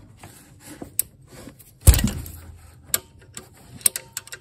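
Socket wrench working the 14 mm alternator pivot bolt: a single sharp metal clank about two seconds in, with scattered clicks of the tool and socket before and after.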